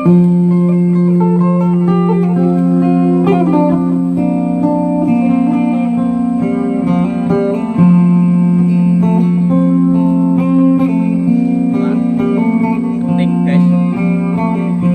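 Background music led by guitar, with sustained notes that change every second or so.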